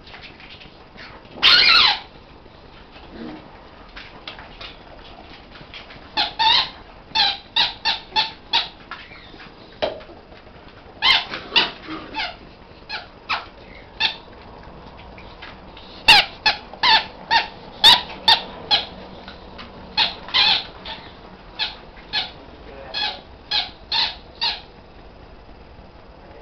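Small dog giving short, high-pitched yips and squeals in quick runs, dozens in all, with one longer squeal about two seconds in, while play-wrestling with a larger dog.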